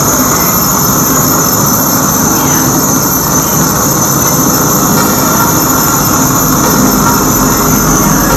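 Loud, dense electronic noise drone from a live experimental sound performance, a steady wash with high whistling tones held above it. The deep low end swells near the end.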